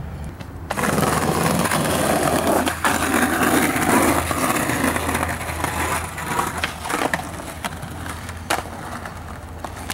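Skateboard wheels rolling over brick pavers with a steady, rough rumble that starts loud about a second in. A few sharp clacks of the board are heard, about three seconds in, near seven seconds and again near eight and a half.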